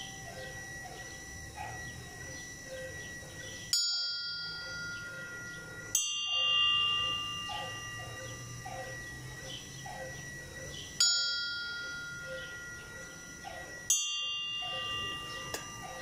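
Church bells tolled slowly for a death knell (toque de difunto): four single strikes a few seconds apart, each left to ring out and fade. The strikes are not all the same pitch, so more than one bell is being rung.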